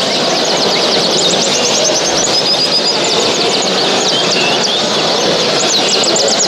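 A dense chorus of many caged songbirds chirping and trilling at once, over a steady background din.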